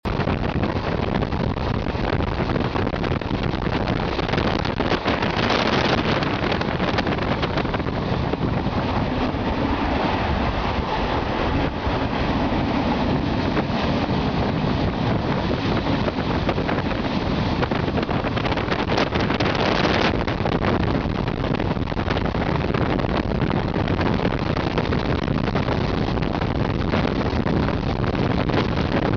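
Passenger train running on the rails, heard from an open carriage window: a steady rush of wind buffeting the microphone over the rumble of the wheels. It grows louder and hissier for about a second around six seconds in and again near nineteen seconds.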